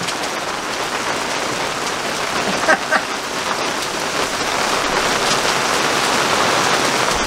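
Steady rain falling on a sailboat's deck, getting slightly louder in the second half. Two short chirps stand out near the middle.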